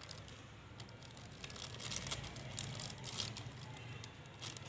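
Faint rustling and crinkling of a plastic snack packet being handled and cut open with scissors, with a few light clicks.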